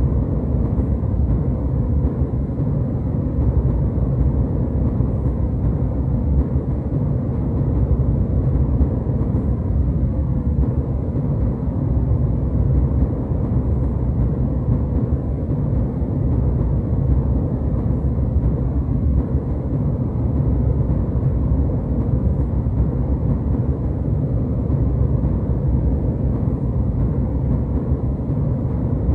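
Jetliner cabin noise in flight: a steady, deep rush of engine and airflow noise.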